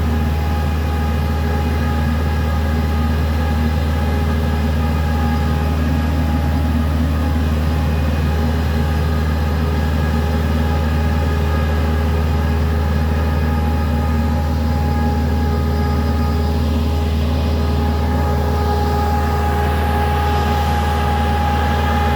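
52-horsepower orchard speed sprayer (airblast sprayer) running steadily at constant speed: a loud, even low hum with steady higher tones over it, with no change in pitch or level.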